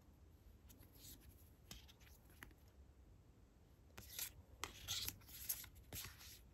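A stack of matte photocards being handled and slid apart between the hands, with faint paper ticks and slides. A run of louder sliding rasps follows about four seconds in, as cards are pulled off the stack.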